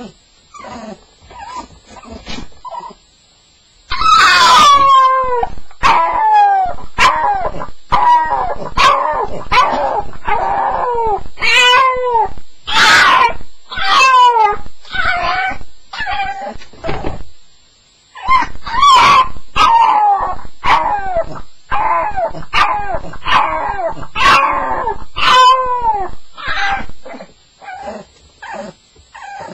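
Staffordshire bull terrier crying in a long run of yelps and howls that slide down in pitch. Faint whimpers come first, then the calls turn loud and close together from about four seconds in, with one short break in the middle, and drop back to faint whimpers near the end. It is the distress crying of a dog on its first night.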